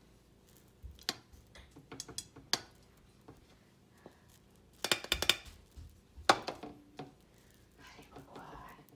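Steel spoon tapping on an upturned stainless steel pan in scattered metallic clinks, with a quick run of taps about five seconds in, to loosen the steamed dhokla out of the pan onto the plate.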